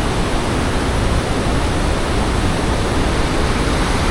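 Loud, steady rushing of a huge waterfall, the Devil's Throat at Iguazú Falls.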